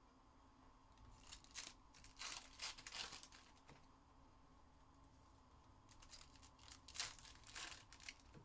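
Faint tearing and crinkling of the plastic wrapping on trading-card boxes, in two bouts of rustling: one starting about a second in, the other around six seconds in.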